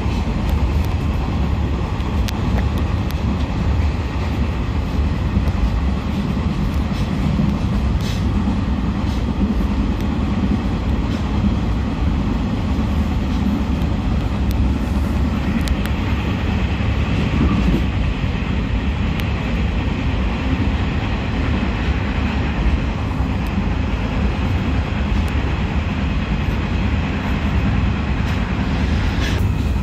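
Passenger train running along the track: a steady low rumble with a few faint clicks, and a higher hiss that grows louder about halfway through.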